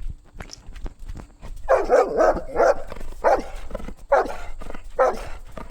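A dog barking: a run of short barks beginning about a second and a half in, four in quick succession, then about one a second.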